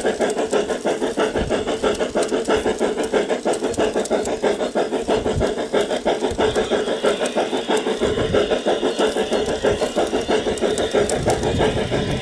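Bachmann K-27 model steam locomotive's onboard sound system playing steam exhaust chuffs as it runs, a rapid, even beat.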